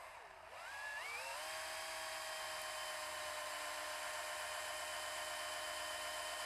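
Drill with a long #40 bit boring into a UHMW plastic slider block: the motor's whine dips and then climbs in pitch about a second in, then holds a steady pitch as the bit cuts.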